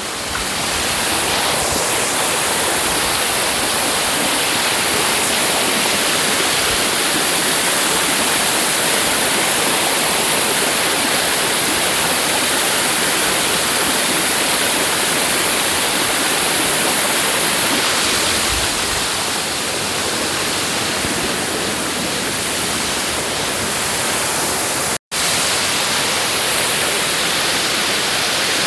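Steady, loud rush of falling water from a waterfall. The sound cuts out for an instant near the end.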